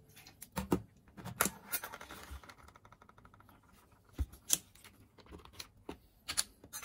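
Scattered sharp clicks, taps and knocks of kitchen utensils and dishes being handled while cooking, about a dozen irregular hits with no steady rhythm.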